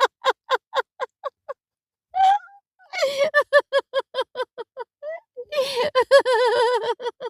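A person laughing in rapid, high-pitched 'ha-ha-ha' pulses, about six a second, that trail off; a gasping breath in about two seconds in, then a second laughing run ending in a long wavering laugh near the end.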